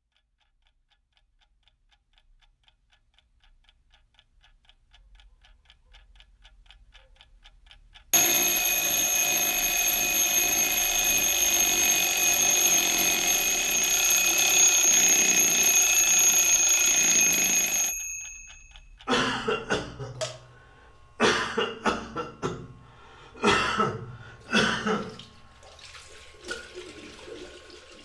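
A clock ticking steadily and growing louder, then an alarm clock ringing loudly for about ten seconds before it cuts off suddenly. A handful of short bursts of noise follow.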